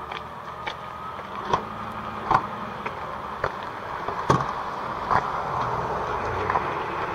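Van engine idling, heard close to its tailpipe, with a sharp click about once a second, loudest about four seconds in.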